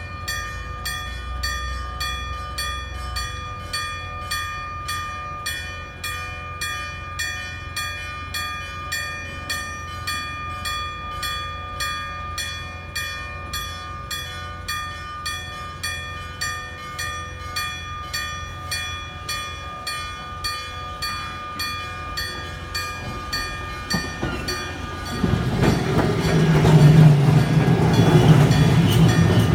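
A level crossing's electric warning bell ringing mechanically, with evenly repeated strokes that each leave several ringing tones. About 25 seconds in, a tram runs over the crossing, louder than the bell.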